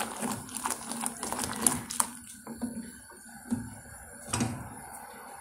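Plastic whisk stirring milk in a steel saucepan on the stove, with irregular light clicks and scrapes where it hits the pan's bottom and sides.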